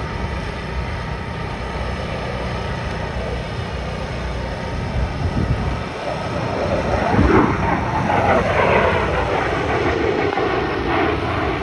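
Military fighter jet flying past at an air show, a steady jet roar that grows louder about seven seconds in, with tones that sweep down in pitch as it passes.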